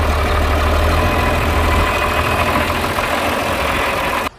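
Concrete mixer truck's diesel engine running steadily with a deep low hum, cutting off suddenly near the end.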